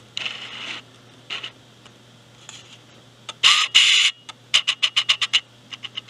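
Plastic parts bags being handled and crinkling in short bursts, the loudest a little past the middle. Near the end comes a quick run of sharp small clicks, about eight a second.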